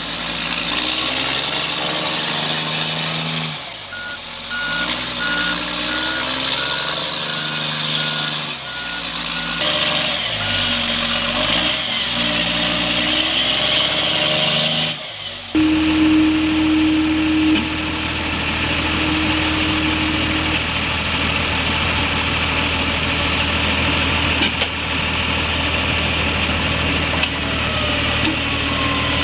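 Heavy military trucks' diesel engines running and revving, the pitch shifting up and down, with a reversing beeper sounding for several seconds. About halfway through, a steady low diesel engine hum takes over.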